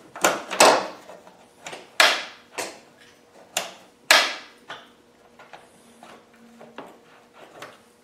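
Land Rover Defender rear door lock and latch clacking as they are worked by hand with the key: a series of sharp, irregular clacks, three of them louder. The lock is sticking and works only now and then.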